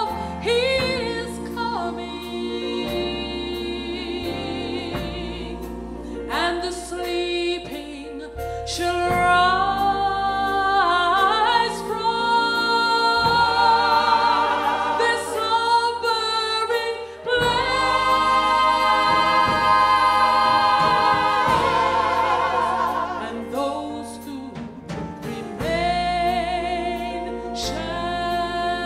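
Gospel vocal group singing: a woman's lead voice sings long held notes with strong vibrato into a microphone, backed by the other singers over steady low sustained notes.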